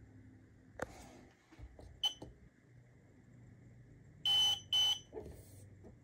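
Cookshack IQ5 smoker controller beeping as its keys are pressed: a light tap, a short beep about two seconds in, then two louder, longer beeps in quick succession a little after four seconds.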